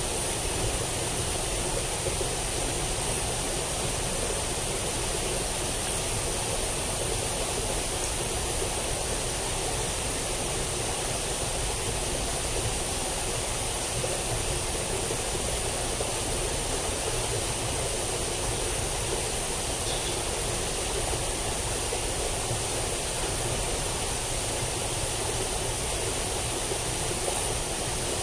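Steady rush of flowing water in a drainage ditch running high after heavy rain, with a constant high-pitched hiss above it.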